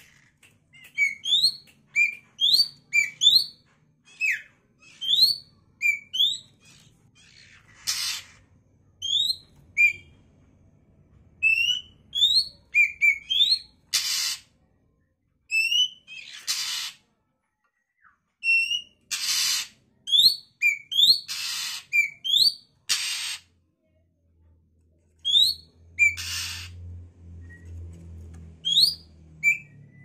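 A juvenile Oriental magpie-robin calling over and over, calling for companions: runs of short, rising whistled notes broken by several longer harsh rasping calls.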